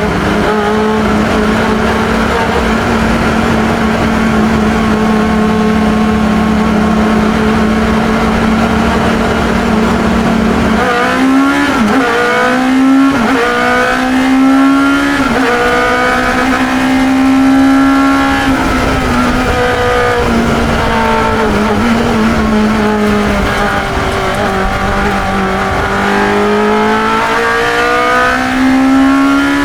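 Onboard sound of a 1972 Chevron B21 two-litre sports racing car's engine at racing speed: held at steady revs for about the first ten seconds, then revs rising and dropping again and again through the rest.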